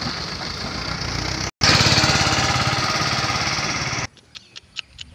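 Mahindra Arjun Ultra-1 555 DI tractor's diesel engine running steadily as it pulls a loaded trailer, a fast even beat of firing pulses. There is a brief break about one and a half seconds in, and the sound cuts off suddenly about four seconds in, leaving only a few faint ticks.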